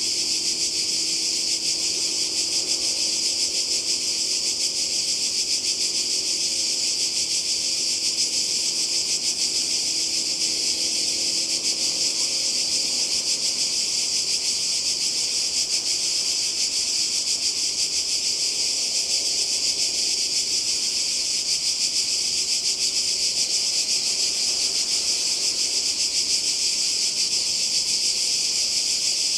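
Cicadas singing together in one steady, high-pitched buzz that never breaks.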